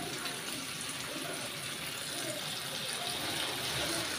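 Masala-coated fish pieces shallow-frying in hot oil in a pan, with a steady sizzle.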